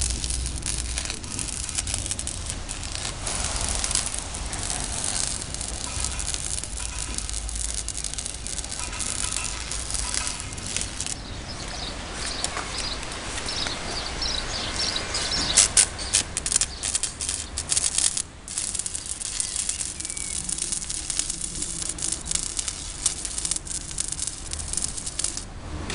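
Electric arc welding on steel: the arc crackles and hisses as rods are welded onto a steel pipe, stopping and starting in uneven runs with short breaks.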